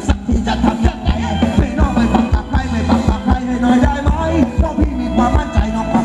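Live Thai ramwong dance-band music with a steady, fast, heavy bass drum beat under melodic instrument lines.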